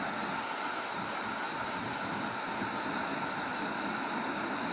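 Handheld electric heat gun running, its fan blowing hot air with a steady, even hiss. It is heating HDPE plastic around a hole, and the filler stick, ahead of welding.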